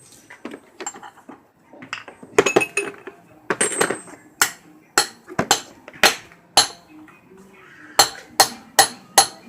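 Hammer striking a socket used as a driver, tapping a ball bearing into a motorcycle's rear wheel hub. Sharp metallic ringing strikes about two a second come in a run of five around the middle and another run near the end, after a few lighter clinks at first.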